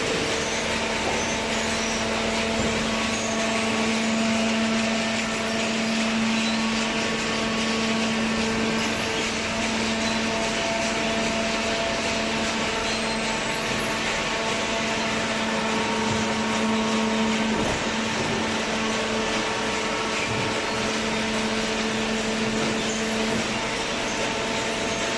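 Corrugated cardboard baler machinery running steadily: a constant rushing noise with a few held hum tones and no breaks.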